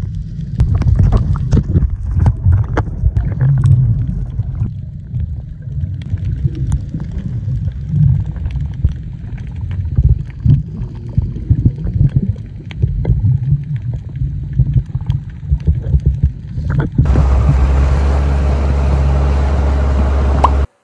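Sea water sloshing and gurgling around a camera held at the surface while snorkeling, heard as irregular muffled rumbling with scattered clicks. Near the end it changes to a steady, even rushing noise.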